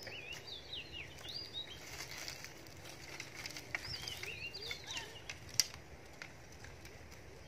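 Dry sticks and branches clattering and crackling as they are picked up and gathered by hand, with one sharp snap a little past halfway. Small birds chirp in quick warbling phrases in two short bursts.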